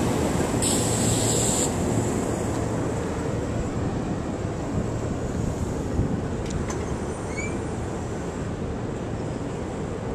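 Steady rumble of a SEPTA electric commuter train pulling away, slowly fading, with wind noise on the microphone. A brief hiss in the first couple of seconds.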